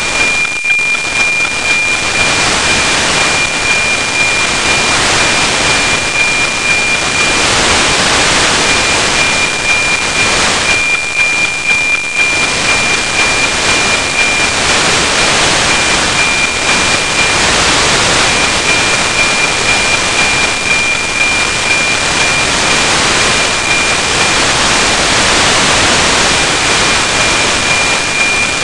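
NOAA 19 weather satellite's APT downlink on 137.1 MHz, demodulated by a software-defined radio: loud steady static hiss with the thin, high APT subcarrier whistle running faintly through it and breaking up now and then. The signal is weak, from a low pass of about 15 to 17 degrees elevation, so the white noise nearly swamps it.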